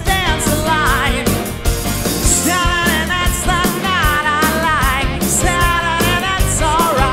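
Male lead singer belting wordless, sliding vocal runs over a live band playing a 1970s soul-pop song.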